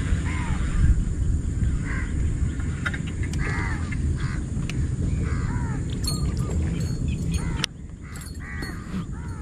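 Birds calling repeatedly over a steady low rumble that cuts off suddenly near the end.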